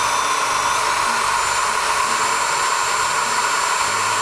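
Corded right-angle drill running at steady speed, its bit drilling into a snapped, seized alternator mounting bolt.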